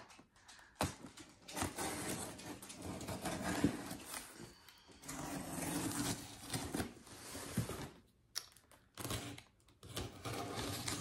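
A cardboard shipping box being opened and handled: irregular rustling and scraping with scattered small clicks, broken by a couple of brief pauses.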